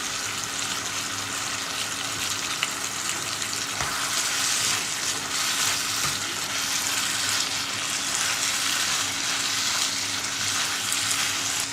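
Chicken and pineapple in sweet and sour sauce sizzling in a hot pan while being stirred, a steady frying hiss with a few light spatula knocks against the pan.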